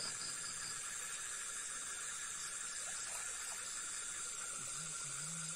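Steady chorus of night insects such as crickets, an unbroken high hiss with no splashes. A faint low voice is heard briefly about five seconds in.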